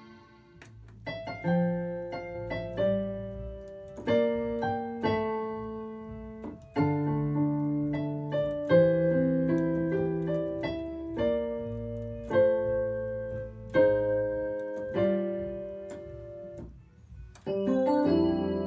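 Korg Trinity synthesizer played in a slow series of sustained keyboard chords, starting about a second in. It is sounding its factory sounds, newly reloaded from floppy disk after a drive replacement.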